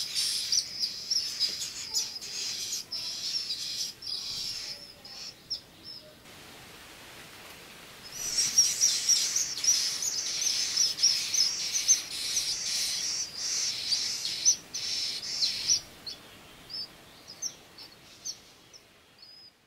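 Eastern kingbird nestlings begging with rapid, high-pitched chattering calls while an adult feeds them at the nest. Two bouts, with a break of about two seconds between them, then the calls thin out to scattered chips near the end.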